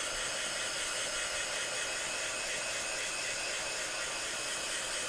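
Handheld electric hot-air tool blowing a steady rush of air, drying wet acrylic paint on the edge of a canvas.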